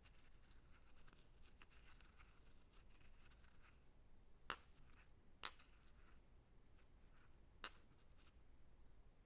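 Faint light scratching and tapping, then three sharp clinks of glass with a brief ring: two a second apart about halfway in, and a third two seconds later.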